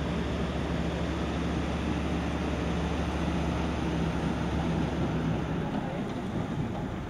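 An engine running steadily at a constant speed, a low hum under a rushing noise; the hum fades about six seconds in.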